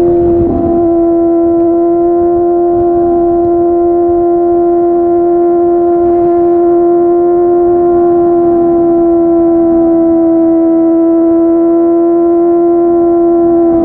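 Kawasaki ZX-25R SE's 250 cc inline-four engine through a Yoshimura R55 slip-on exhaust, held at steady high revs: a loud, even, high drone with a brief wobble about half a second in.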